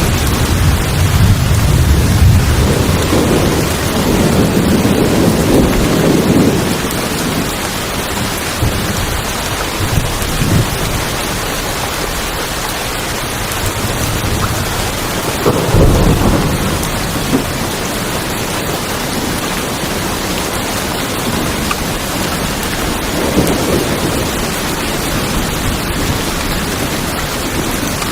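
Steady heavy rain falling on a tin roof, a dense even hiss, with rolls of thunder rumbling low in the first few seconds, again about halfway through, and more faintly near the end.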